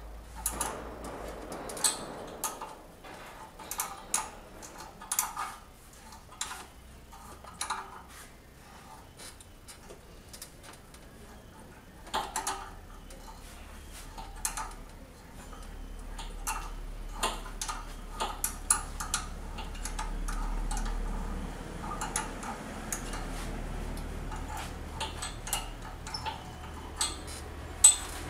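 Metal hand tools and engine parts clinking and tapping in an irregular series of sharp clicks, as parts are worked loose during an engine teardown.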